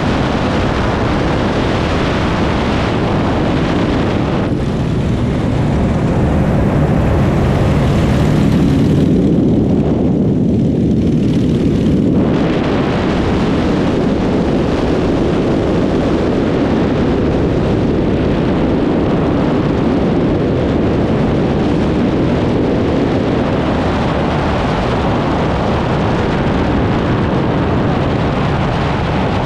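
Propeller aircraft of a five-plane formation flying over: a deep, steady engine drone that swells to its loudest around eight to twelve seconds in, then carries on under a constant rush of noise.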